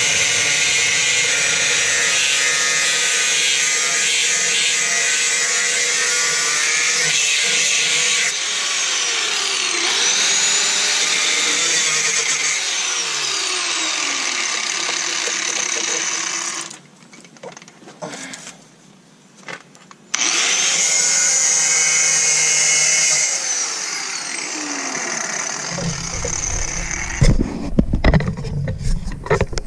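Angle grinder with a cut-off wheel cutting through the rusted steel rocker panel of a Chevy Silverado 2500 HD, its whine wavering in pitch as the wheel bites. It stops for a few seconds past the middle, runs again briefly, then gives way to irregular knocks and thumps near the end.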